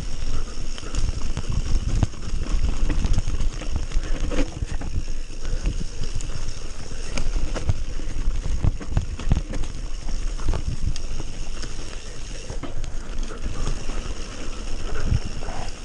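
Mountain bike rattling over a bumpy wet dirt trail: tyres on the ground and the bike clattering with many irregular knocks, over a steady low rumble.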